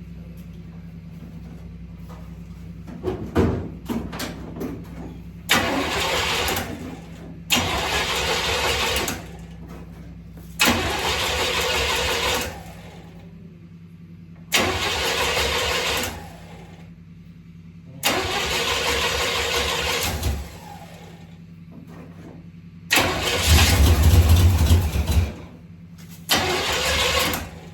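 Chevelle's starter cranking the engine in repeated tries of about two seconds each, seven in all, without the engine catching and running; the sixth try is the loudest. A few knocks come before the first crank.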